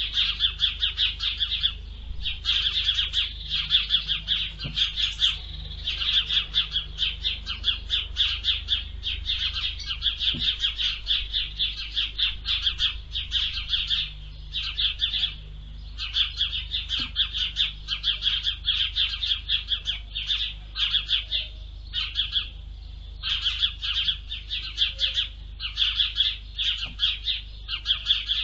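Small songbirds chirping rapidly and almost continuously, many quick notes a second, broken only by a few short pauses.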